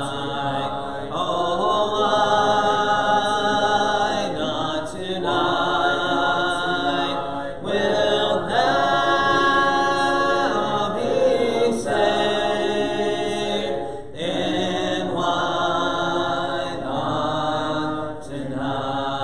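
A congregation singing a hymn a cappella: many unaccompanied voices holding long notes in phrases a few seconds long, with brief breaks between.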